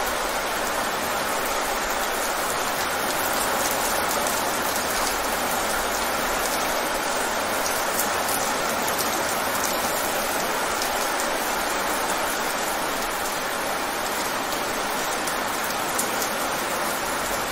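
Rain falling fast on wet pavement: a steady, even hiss of splashing drops.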